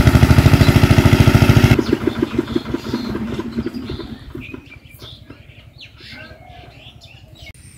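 A small engine running with fast, even thumps, loud for the first couple of seconds, then suddenly much quieter and dying away over the next few seconds.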